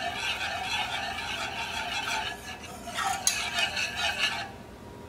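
Wire whisk stirring honey mustard sauce in a small saucepan, its wires scraping and swishing against the pan. It lets up briefly about halfway through, comes back louder, then stops near the end.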